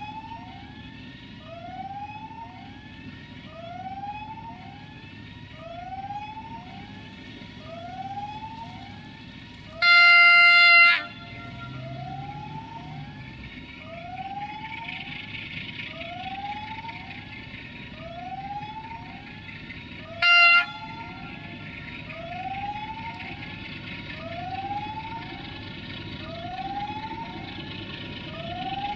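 A diesel freight locomotive's horn sounds one loud blast of about a second, then a short toot about ten seconds later, over the low rumble of the approaching train. Behind it an electronic warning signal repeats a rising chirp about every one and a half seconds.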